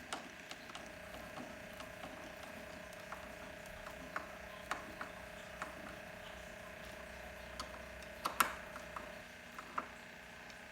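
Faint, irregular clicks and ticks of a hand screwdriver driving screws into the plastic frame of an electric pressure washer and of parts being handled, with the loudest click about eight seconds in. A faint steady hum sits underneath and stops about nine seconds in.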